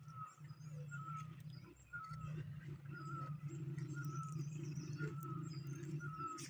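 Birds calling: one bird repeats a short slurred note about every half second, while other small birds chirp higher up. A steady low hum comes in beneath them about two seconds in.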